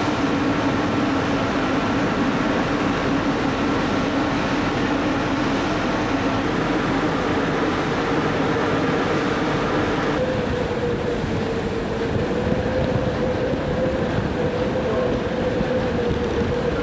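Steady drone of a ferry's engines and machinery heard on board, with a low hum running under a noise bed; about ten seconds in the hum changes pitch and the sound turns duller.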